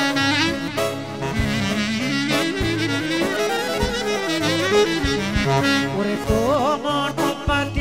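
Greek folk clarinet playing an instrumental passage of wavering, ornamented runs, over a band with a steady drumbeat and bass.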